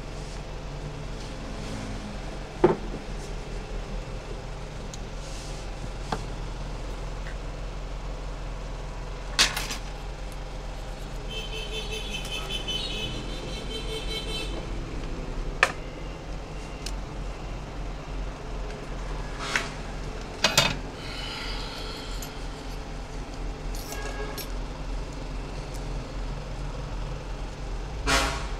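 Small metal hand tools on a phone-repair workbench clicking and knocking now and then as they are handled and set down, with a short high rapid rattle about twelve seconds in, over a steady low background hum.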